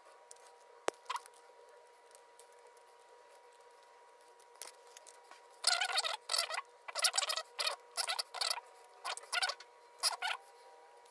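A plastic mains plug being taken apart by hand: a couple of faint clicks, then from about halfway a string of short scratchy rattles and clicks as its brass contact pieces and plastic housing are handled.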